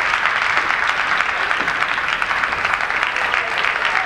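Spectators applauding steadily between points of a table tennis match, a dense continuous clapping.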